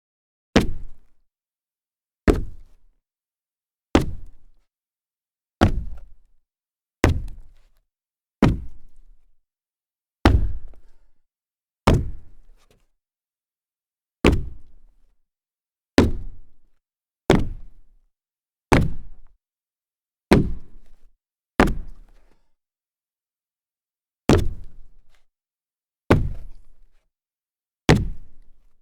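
Sneaker jump landings: about seventeen separate thuds, one at a time with a second or two of silence between, each a sharp hit with a short low decay.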